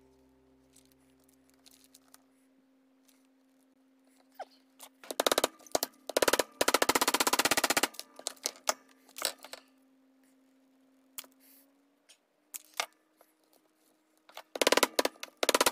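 A small claw hammer tapping metal wire staples into a wooden board to pin down rope. The blows come in quick runs of light knocks, one about five seconds in that lasts around three seconds and another near the end, with a few single taps between.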